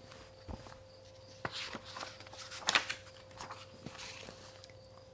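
Paper pages of a hardcover picture book being turned by hand: a series of soft rustles and crisp crinkles, the loudest about halfway through.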